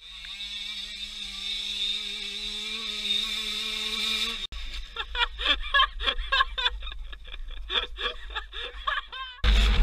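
Dirt bike engine running at steady revs, cut off abruptly about four and a half seconds in. Then a person laughing in short bursts, and loud guitar music starting near the end.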